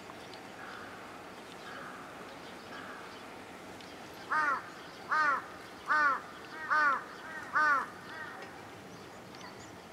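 A crow cawing five times in a row, about four seconds in, each caw a short arched call.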